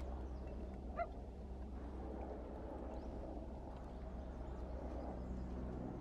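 Steady low hum under a faint outdoor background, with one short high squeak from a macaque about a second in.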